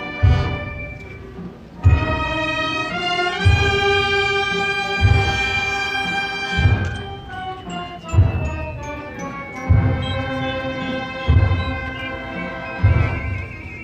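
A brass band plays a slow funeral march (marcha fúnebre) with sustained brass chords. A bass drum strikes a steady, slow beat about every one and a half seconds.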